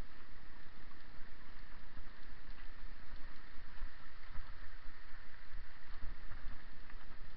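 Bicycle rolling downhill over a rough gravel track: steady tyre rumble and rattle, with irregular low thumps as it goes over bumps and wind buffeting the camera microphone.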